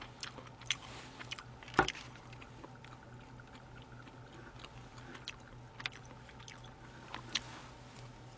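Faint clicks and taps of chopsticks picking up sushi from a plastic tray, with one louder knock about two seconds in.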